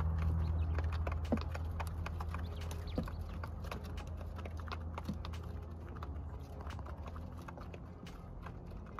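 Light, irregular taps and clicks of quail stepping and pecking about a wire-floored cage, over a low steady hum that slowly fades.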